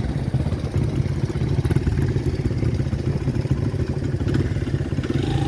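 A motorcycle engine running steadily, a dense, rapid low pulsing that holds at an even level.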